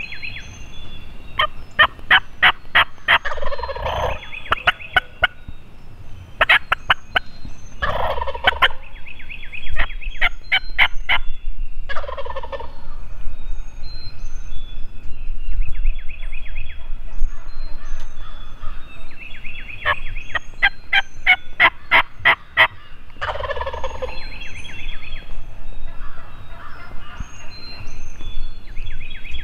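A wild turkey gobbler (longbeard) gobbling on the roost: loud, rattling gobbles about four times, each lasting a second or two.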